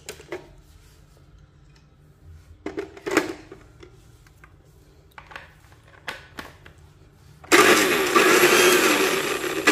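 Knocks as a glass blender jar is set on its base, a few small clicks, then about seven and a half seconds in a T-com 160 W blender motor starts abruptly and runs loud, with a wavering whine. It runs a bit noisy.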